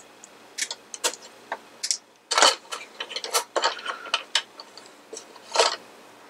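A string of irregular sharp clicks and snaps: small wire cutters snipping bulb leads and the wires being handled against the hard plastic base, as the light bulbs are taken out of the circuit.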